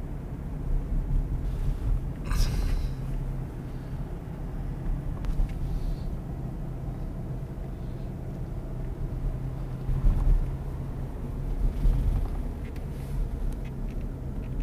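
Car driving on the road, heard from inside the cabin: a steady low rumble of engine and road noise with an even engine hum. There is a brief high-pitched sound about two seconds in, and the low rumble swells louder around ten and twelve seconds in.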